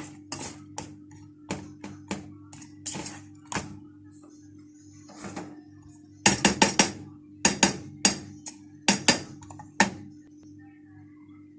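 Kitchen utensils clinking and knocking against cookware: scattered sharp knocks, a quick run of several about six seconds in, then a few more spaced out, over a steady low hum.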